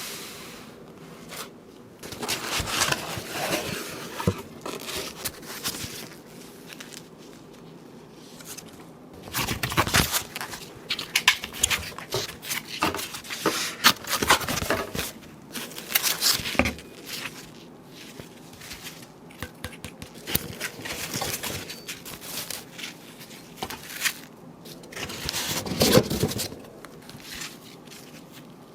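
Hands handling packaging and PC parts: irregular rustling, scraping and clicks over a faint steady hum, busiest in the middle and once more near the end.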